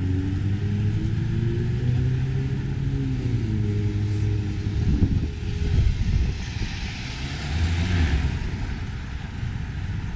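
Car traffic at a street intersection: engines running low and steady, easing down in pitch about three seconds in, then the hiss of tyres swelling and fading as a car drives past about six to eight seconds in.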